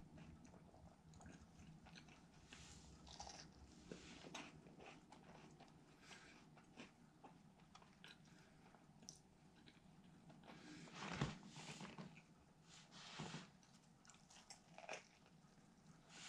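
Faint, close-by chewing and crunching of a crispy fried chicken sandwich, in irregular bursts of mouth noise. One louder sharp sound comes about eleven seconds in, with smaller crunches after it.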